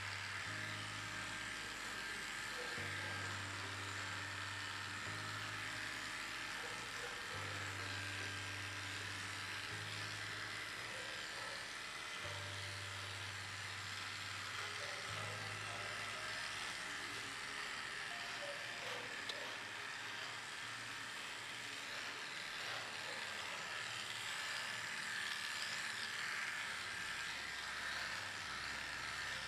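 Corded electric dog clipper buzzing steadily as it shaves off matted coat, over soft background music whose low notes change every couple of seconds and fade after about the middle.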